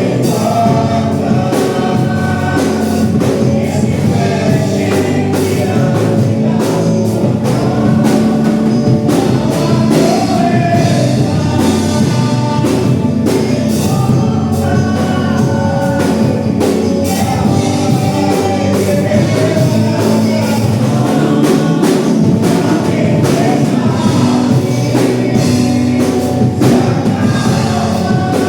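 Gospel worship music: several voices singing over a band, with a steady drum beat throughout.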